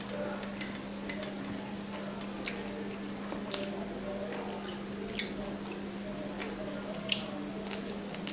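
A person eating rice and curry by hand, with wet chewing and occasional sharp mouth clicks and smacks, about four over the stretch. A steady low hum runs underneath.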